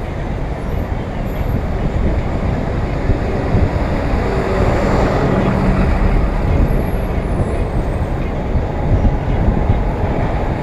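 Steady, loud city traffic heard from a moving bicycle, with a heavy low rumble of wind on the action camera's microphone. Near the middle a bus's engine runs close alongside.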